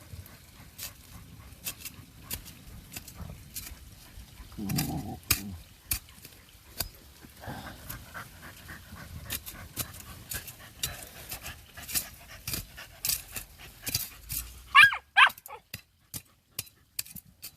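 Criollo (mixed-breed) dogs digging at a burrow, with claws scratching at dirt throughout. A low growl comes about five seconds in, and two sharp, high yelping barks come near the end.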